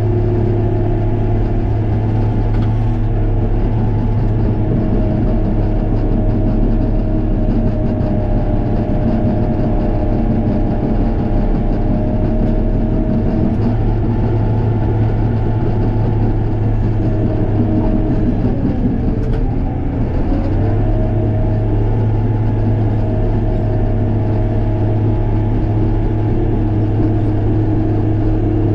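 Case 850K crawler dozer's diesel engine running steadily under load while grading. About twenty seconds in, the engine note sags and comes back up.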